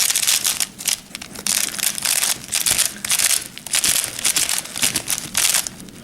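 Plastic packaging crinkling and rustling in irregular handfuls as it is handled.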